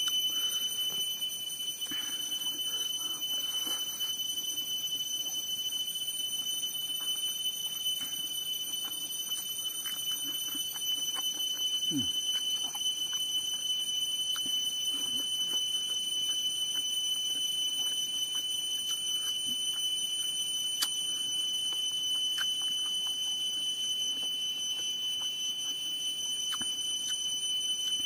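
A person eating rice and meat with the hand: faint chewing, lip-smacking and mouth clicks, over a steady high-pitched whine.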